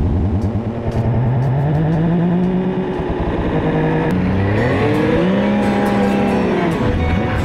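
Snowmobile's two-stroke engine revving up and down as the sled is ridden through deep powder, the pitch rising about a second in and swelling and falling again over the last few seconds.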